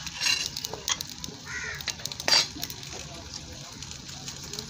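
Flatbread cooking on a hot iron tawa over a wood fire, with light sizzling and small crackles. A crow caws once about a second and a half in, and a single sharp knock, the loudest sound, comes a little past halfway.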